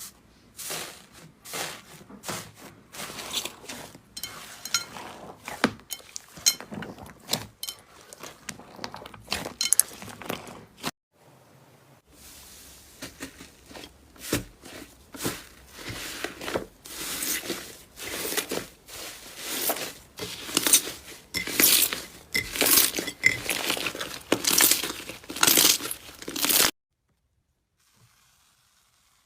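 Slime being squeezed and pressed by hand, making a quick, irregular run of crackles, clicks and pops. It breaks off about eleven seconds in, comes back louder with sharper snaps, and stops abruptly near the end.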